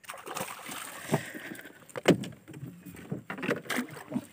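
Water splashing beside a small boat as a hooked fish is brought to the landing net, with several short knocks against the boat.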